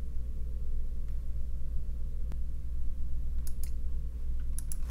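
A few faint computer mouse clicks, one a little over two seconds in and a small cluster near the end, over a steady low hum.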